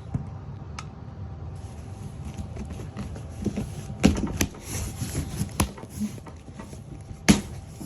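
Handling noise: several sharp knocks and clicks, the loudest about four seconds in and another near the end, over a steady low hum.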